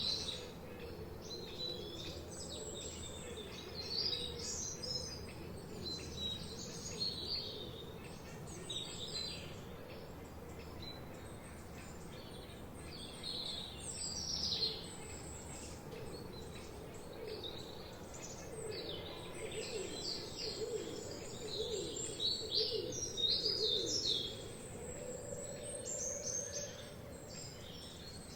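A chorus of forest birds chirping and singing, with many short, high calls overlapping throughout. A lower, wavering call joins in the second half.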